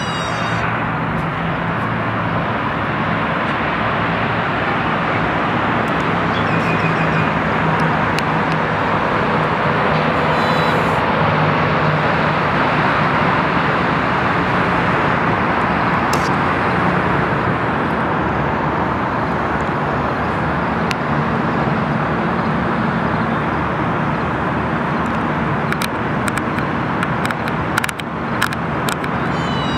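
Steady distant road traffic heard from high above, an even hiss without distinct passing vehicles. A few short ticks sound near the end.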